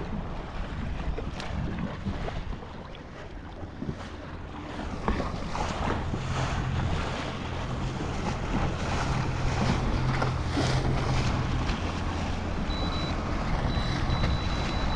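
Wind buffeting the microphone over choppy water lapping at a kayak, with a few light knocks. About six seconds in, a steady low motor hum sets in and carries on.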